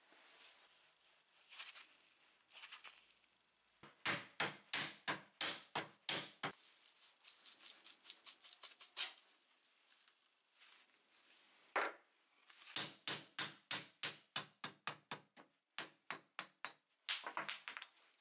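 Quick runs of sharp hammer knocks, about five a second, in three bursts, with a few softer single knocks between them: an old drawknife's wooden handles being knocked off their tangs.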